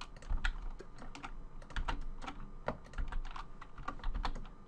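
Computer keyboard keys clicking in an irregular run, several presses a second, as Blender shortcut keys are pressed.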